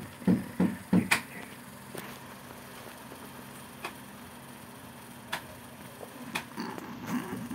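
Low thumping beat, about three a second, that breaks off about a second in and comes back near the end; in the gap there is only a faint hum and a few sharp clicks.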